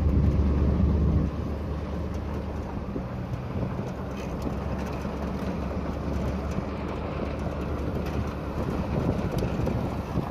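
Pickup truck driving along a road, heard from its open bed: a steady low engine and tyre rumble with wind noise. The rumble is louder for about the first second, then evens out.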